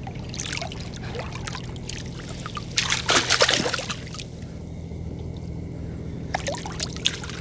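River water splashing and dripping as a hand net is swept through it, loudest about three seconds in and again near the end. Under it runs the steady low hum of the boat's idling motor.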